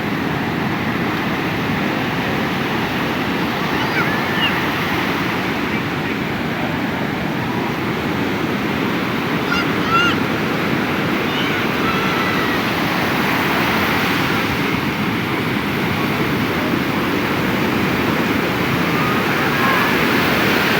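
Sea surf washing steadily onto a beach, with a few faint, brief distant cries from people in the water.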